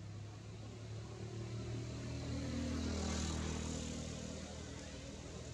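A passing engine's drone that grows louder to a peak about halfway through, then fades.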